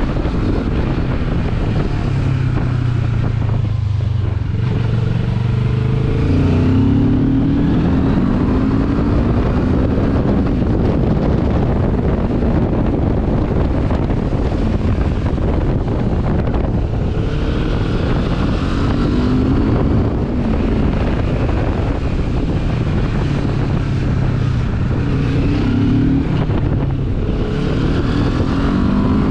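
Benelli TRK 702's parallel-twin engine pulling along a winding road, its pitch rising and falling several times as the rider speeds up and eases off through the bends, over a steady rush of wind and road noise.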